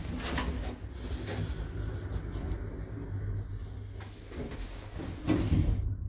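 Doors of a 2018 lift working: a run of clicks and knocks over a steady low hum, with the loudest knock just before the end.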